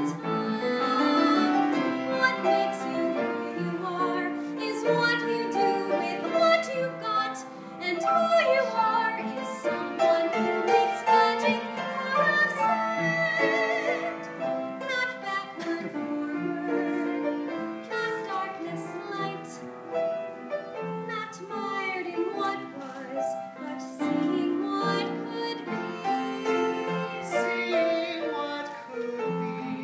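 Musical-theatre song: piano accompaniment with held sung notes at times, a man's voice singing near the end.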